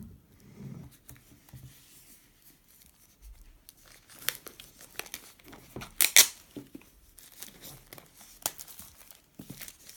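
Plastic shrink-wrap being picked at and torn off a CD box set, with crinkling and a few sharp rips, the loudest about six seconds in.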